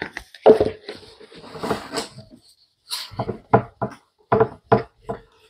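Objects being handled and moved about, a rustling clatter, then a quick run of about seven short knocks on something wooden-sounding.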